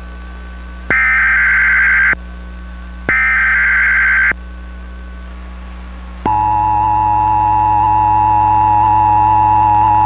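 Emergency Alert System test: two bursts of the warbling digital SAME header data, each about a second long with a second's gap between them. About six seconds in, the steady two-tone EAS attention signal begins and holds.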